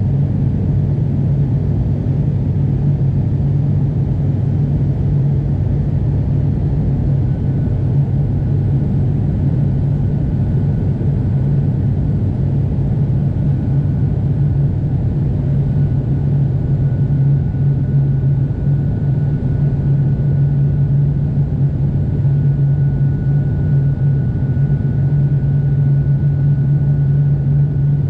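Steady engine and airflow drone inside an airliner cabin during the descent to land, with a strong low hum. A faint high whine joins it about eight seconds in.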